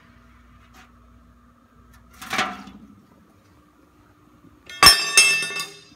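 Steel railing parts clanking against each other: a dull knock about two seconds in, then near the end a sharp metallic clang that rings briefly, with a second hit just after it.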